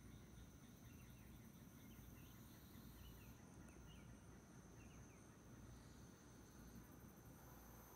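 Near silence: faint garden ambience with a steady high-pitched insect drone, and a faint run of short bird chirps in the first half.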